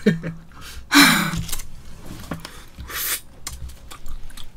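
A short breathy laugh about a second in and a hissy breath-like burst near three seconds, with small clicks of chopsticks and eating between them.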